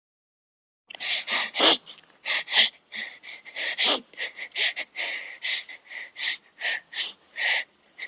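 A child crying in short, gasping sobs, about three a second, starting about a second in.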